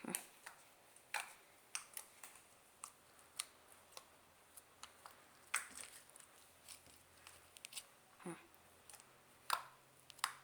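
Scattered faint clicks and taps, irregular and short, of small objects and containers being handled.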